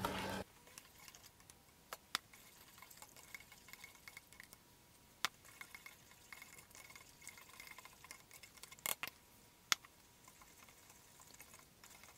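A spoon stirring sugar into water in a saucepan until it dissolves: faint, quiet swishing and scraping, with a few sharp clicks.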